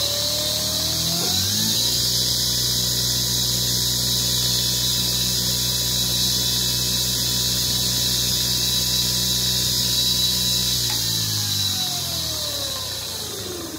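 Razor MX350's 24-volt, 350-watt electric motor run on the throttle through its new speed controller: a whine that climbs to full speed in the first second or two, holds steady, then winds down from about eleven seconds in as the throttle is let go. The motor is running smoothly, which marks the salvaged drive as working again.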